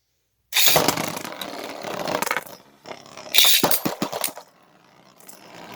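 3D-printed Beyblade tops spinning and grinding against each other in a stadium, with a run of sharp clacks from collisions about three to four seconds in.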